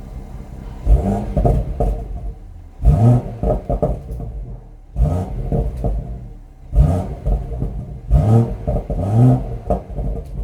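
BMW M140i's turbocharged straight-six revved in a series of short, sharp throttle blips, about every two seconds, the revs rising quickly and falling back each time, heard through the exhaust.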